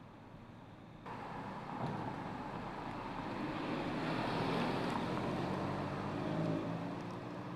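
A 2016 MINI Cooper Convertible driving past, engine and tyre noise swelling to a peak about four to five seconds in, then fading as it moves away.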